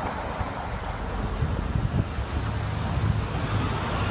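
Wind buffeting the microphone of a camera riding along on a bicycle, a steady low rumble, with street traffic underneath.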